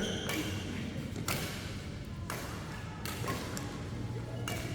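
Badminton rackets striking the shuttlecock in a doubles rally: about five sharp hits roughly a second apart, each with a short ring of hall echo.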